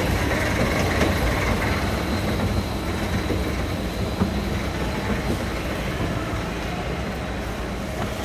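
Steady low rumble of airport terminal background noise, with a faint steady high tone above it.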